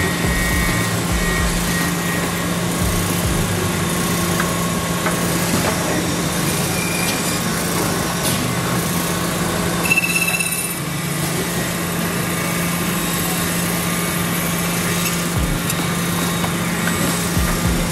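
Temple edge cutting machine trimming the edges of metal eyeglass temples, running with a steady hum amid factory machine noise. A brief sharp squeal about ten seconds in.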